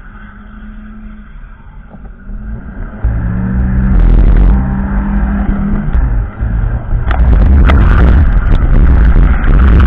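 A Volvo's engine, heard from inside the car, runs quietly for about three seconds, then is revved hard as the car pulls away. The note rises with a couple of short breaks. Several sharp knocks come near the end.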